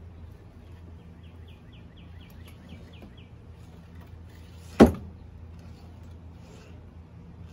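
A single sharp knock just before five seconds in, from hands rigging a rope line on a canoe's wooden leeboard and aluminium frame. Under it runs a steady low hum, and a quick run of about ten high chirps comes between one and three seconds in.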